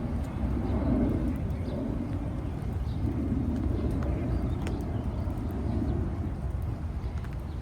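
Outdoor ambience on a walk through a wet park: a steady low rumble that swells and fades every second or two, with a few faint clicks or drips over it.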